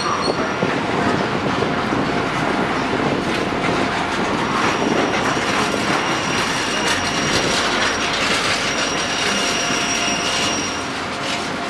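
A freight train's empty open box wagons rolling past, with steady wheel-and-rail running noise. A thin, high wheel squeal starts about four seconds in and fades near the end.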